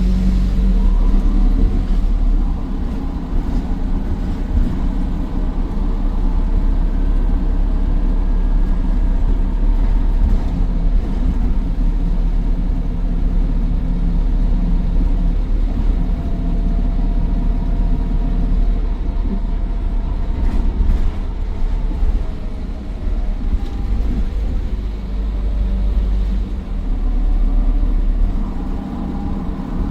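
Optare Versa bus's Daimler OM934 5.1-litre four-cylinder diesel running under way through its Allison 2100 automatic gearbox: a deep steady rumble with a faint turbocharger whine over it that rises and fades.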